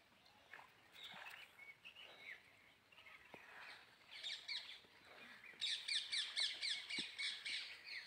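Small birds chirping, scattered at first, then a quick run of repeated high chirps over the last two seconds or so.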